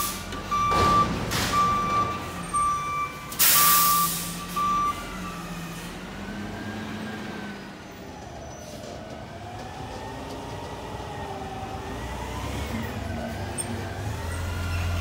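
A CNG Peterbilt 520 front-loader garbage truck's reversing alarm beeping over its engine, with clanks and a loud air-brake hiss about three and a half seconds in. The beeping stops after about five seconds, and the truck runs on with a wavering drivetrain whine as it drives off, its engine rumble building near the end.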